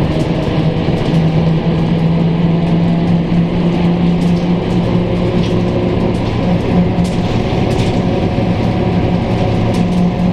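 Scania K310UB city bus heard from inside the cabin while under way: the engine runs with a steady low hum, with light clicks and rattles from the interior.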